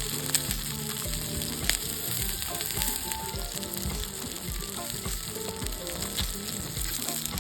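Pork belly slices sizzling as they fry in a pan over a wood fire, with a couple of sharp spattering pops. Background music with a steady beat plays underneath.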